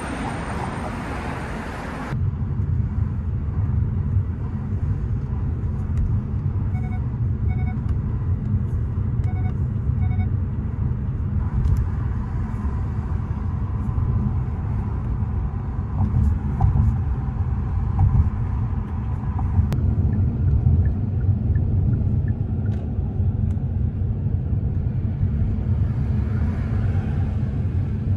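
About two seconds of street traffic noise, then a cut to a steady low road-and-engine rumble inside the cabin of a moving car. A few faint short beeps sound in the middle.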